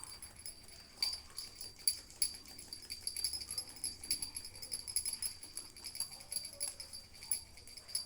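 Beagle puppy scratching itself, shaking a small metal jingle into a fast run of ticks with a steady high ringing.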